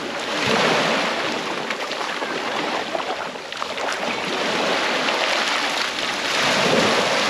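Small waves washing onto a sandy beach, the surf swelling about half a second in and again near the end.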